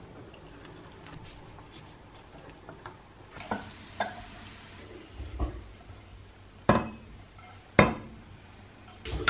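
Pots and crockery: a fork stirring noodles in a saucepan, then a series of sharp knocks and clinks as noodles are tipped from the saucepan and stir-fried vegetables are turned out of a frying pan into a ceramic bowl. The loudest two knocks come in the second half.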